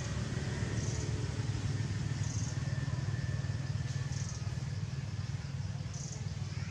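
Steady low rumble of a motor vehicle's engine running nearby, with faint short high hisses recurring every second or two.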